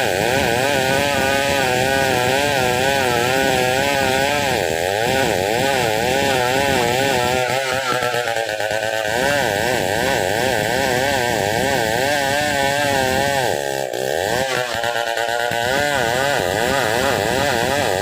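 Stihl 070 two-stroke chainsaw running hard while cutting through wood, its engine pitch wavering rapidly up and down under load. About fourteen seconds in, the pitch briefly sags and then picks back up.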